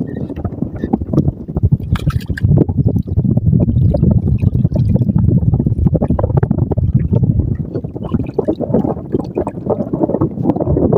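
Water sloshing and gurgling against the hull of a small wooden outrigger boat, a continuous low rumble that grows louder about four seconds in.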